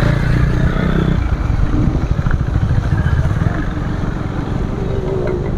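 Motorcycle running as it is ridden through heavy rain on a wet street, with a steady low rumble.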